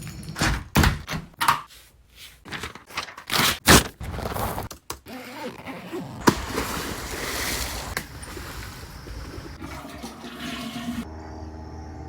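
A quick string of sharp knocks or thuds, then a steady rushing, water-like noise with a couple of single clicks in it, which cuts off suddenly about eleven seconds in.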